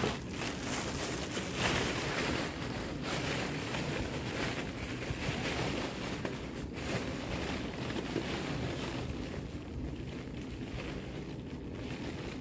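Thin plastic bag rustling and crinkling continuously as it is gathered, twisted and knotted shut by hand.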